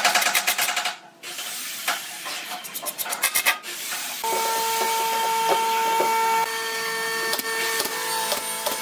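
Cordless impact driver hammering screws into pine boards in two short rattling bursts, the first at the start and the second about three seconds in.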